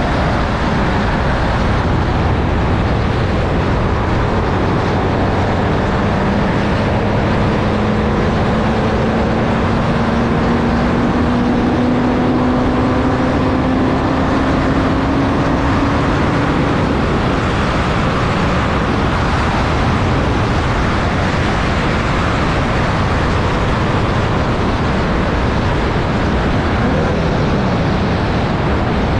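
Formula Vee racing car's 1200cc Volkswagen air-cooled flat-four engine at full throttle, heard onboard under heavy wind rush. The engine note climbs steadily for about ten seconds, then drops away a little past the middle as the throttle is lifted.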